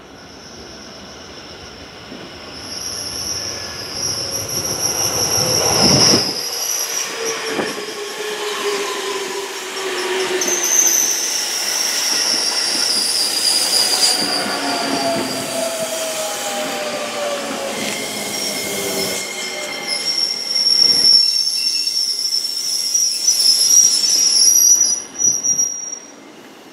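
JR 205 series 5000 sub-series electric commuter train running past on a curve and slowing to stop. Its wheels squeal high and steadily on the curve, while its VVVF inverter traction motors whine in several tones that fall in pitch as it brakes. The sound builds over the first few seconds and dies away near the end as the last car passes.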